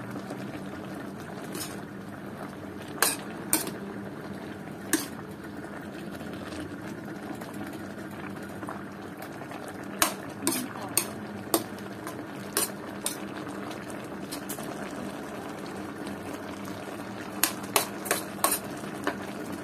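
Metal ladle stirring a simmering pork-and-greens stew in a metal wok, knocking and scraping against the pan in scattered clinks: a few early, a run in the middle and a quick cluster near the end. The broth bubbles steadily underneath.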